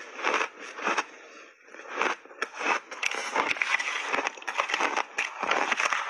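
Shaved ice crunching between the teeth as a big mouthful is chewed: separate crunches at first, a short lull about a second and a half in, then dense, continuous crunching.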